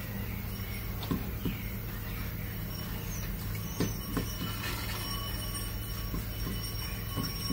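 Scattered sharp knocks from hand masonry work on a concrete-block wall, over a steady low rumble.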